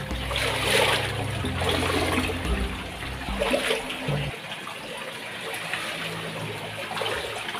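Shallow ditch water flowing and splashing through a stone-walled culvert, a steady rushing noise. A low rumble under it stops suddenly about four seconds in.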